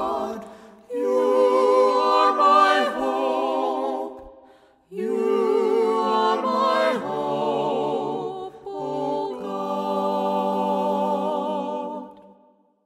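Several voices singing a cappella in long held notes with vibrato, in three phrases with short breaks about a second in and about five seconds in; the last phrase fades out at the end.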